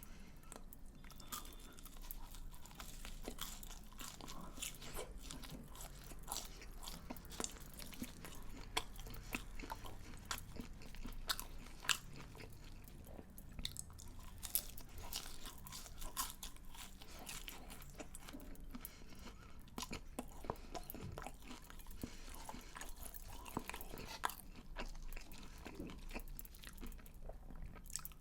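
Close-miked eating of crunchy fried food: bites and chewing with dense, irregular crackling crunches throughout.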